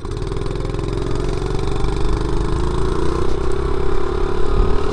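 A 50cc four-stroke pit bike engine running under load up a hill, its pitch rising slowly and getting gradually louder.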